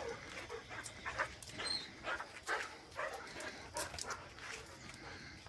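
A Rottweiler and a puppy play-wrestling, with short dog vocalisations (growls and yips) in irregular bursts, mixed with sharp ticks and scuffs from their scrabbling.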